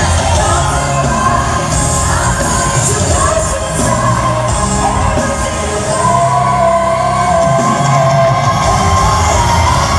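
Live pop concert music: a singer's voice over an amplified band, with the audience audible beneath.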